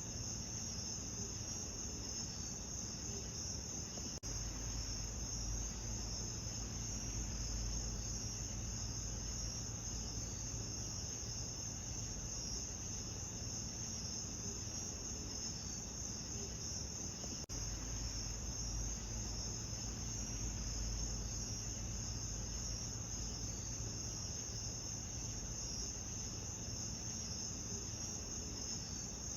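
Crickets chirping in a dense, unbroken chorus over a low, even rumble, with two brief dips in level.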